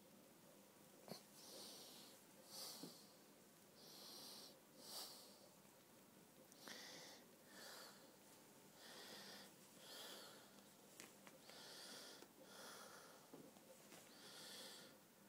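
Faint, soft breathing close to the microphone: hissy puffs of air about every second or two, some with a slight wheeze.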